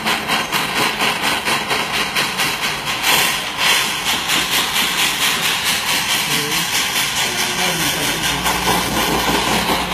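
Jeweller's blowtorch flame hissing steadily as it melts a one-gram piece of gold chain in a crucible, the hiss pulsing about three times a second. A low hum comes in near the end.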